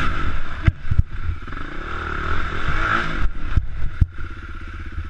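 Dirt bike engine running with small rises in revs, while the bike is hauled about in a rut, giving a few sharp knocks and clatters from the machine.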